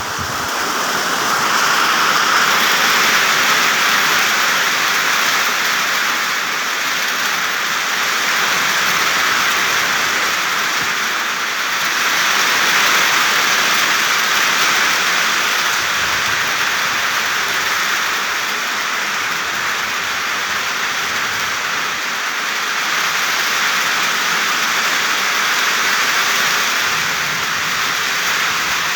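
Steady rain falling on plant leaves, an even wash of drops that swells and eases slowly.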